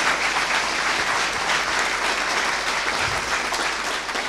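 Audience applauding at the end of a talk: steady, dense clapping that eases off slightly toward the end.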